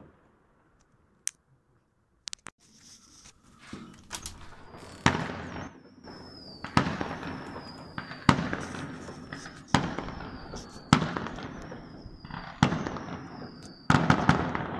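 Aerial fireworks going off: after a brief hush, a string of sharp bangs about every second and a half, each trailing off into crackle. A thin high whistle, slowly falling in pitch, runs under the middle of the string.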